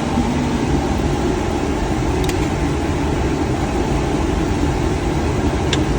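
Steady drone of boiler-room machinery running, a low hum under an even rushing noise, with two faint clicks, one a little over two seconds in and one near the end.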